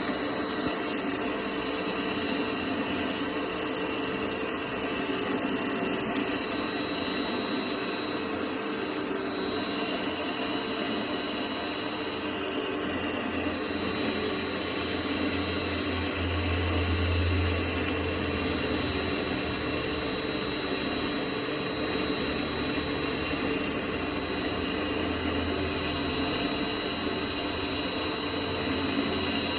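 Mini lathe running steadily with a high, even whine while turning a steel workpiece. A low hum swells for a few seconds about halfway through.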